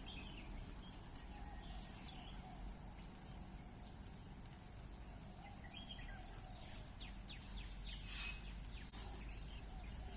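Outdoor ambience of a steady high-pitched insect drone, with a few faint bird chirps and a quick run of ticks near the end.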